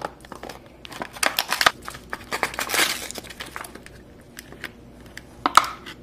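Clear plastic packaging crinkling and crackling as it is handled and pulled off a small diecast toy car, busiest about one to three seconds in, with a short burst near the end.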